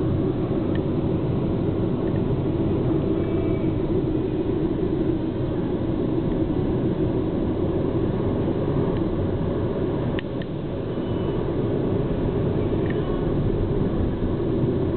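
Steady engine and road noise of a moving car, heard inside its cabin.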